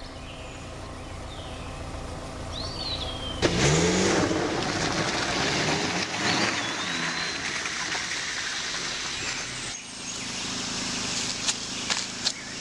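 A van's engine running low, then revving sharply about three and a half seconds in as the van pulls away on the dirt road. The noise carries on for several seconds and dies down well before the end. A few bird chirps.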